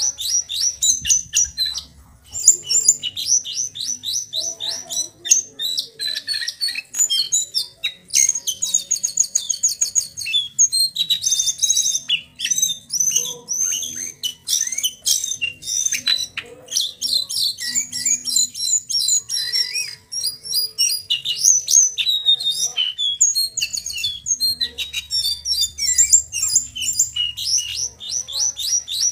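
A young male brown jongkangan, still in speckled juvenile plumage, singing without a break: fast runs of high chattering notes, rolling trills and short whistles. It is a bird still learning its song.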